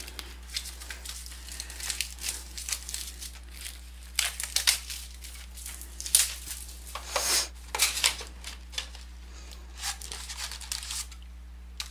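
Plastic and foil wrapping on a box of 2017 Panini Certified football cards being crinkled and torn open by hand, with irregular rustling and crackling as the packs are pulled out.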